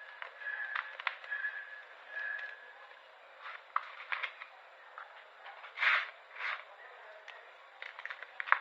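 Brittle pink blocks being pressed and crumbled for ASMR: a high squeak repeating about every half second in the first few seconds, then scattered sharp clicks and two louder crunches about six seconds in.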